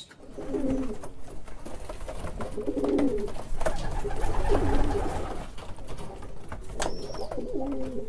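Racing pigeons cooing in their loft: low, bending coos repeated every second or two.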